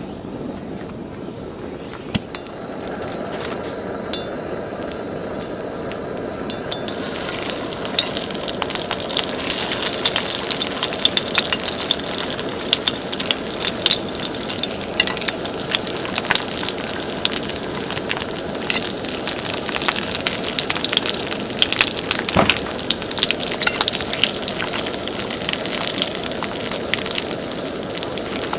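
Food frying in a hot pan: a dense crackling sizzle that swells about seven seconds in, with scattered sharper pops and light clinks.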